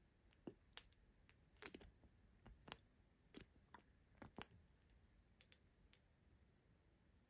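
A dozen or so faint, irregular clicks and taps, spread unevenly over several seconds.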